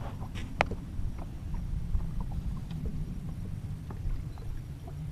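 Ambience on a small fishing boat: a steady low rumble with scattered light clicks and knocks, one sharper click about half a second in.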